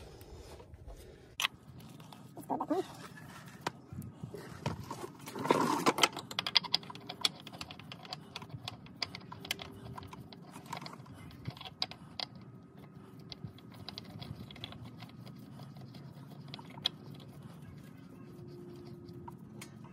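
Small irregular clicks, ticks and rubbing as a gloved hand screws a new oil filter onto its mount by hand, with a louder burst of rustling a little over five seconds in.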